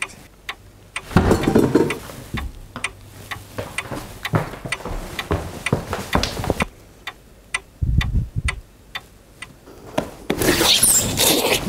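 Clock ticking steadily, a sound effect marking hours passing, with a couple of dull thumps in between.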